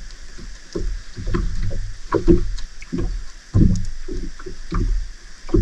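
Irregular knocks and water sloshing around a small fishing boat at sea, over a steady low rumble.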